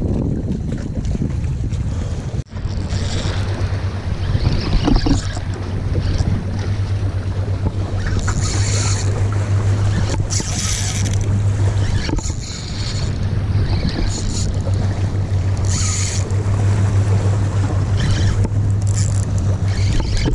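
Wind rumbling on the microphone with a steady low hum, while a spinning reel is worked against a hooked fish. Several short high buzzing bursts, about eight, ten and sixteen seconds in, fit line being pulled off the reel's drag, which had just been judged too weak.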